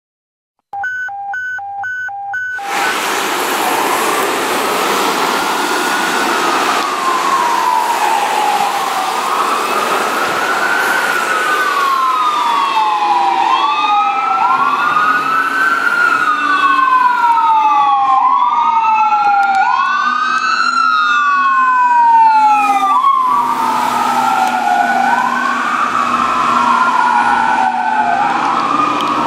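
Dual Whelen 295 electronic sirens on a fire engine sounding in wail. Their slow sweeps rise and fall every two to three seconds, and the two sirens overlap out of step. A steady tone plays for about two seconds before the sirens begin.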